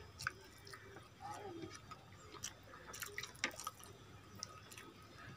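Close-miked wet eating sounds: scattered sharp mouth clicks and smacks while chewing, with fingers squishing rice and curry on the plate.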